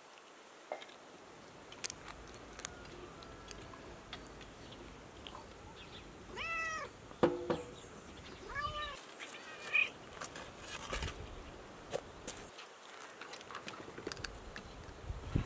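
Domestic cat meowing twice about halfway through, the first call longer, each rising and falling in pitch, with scattered small clicks around them.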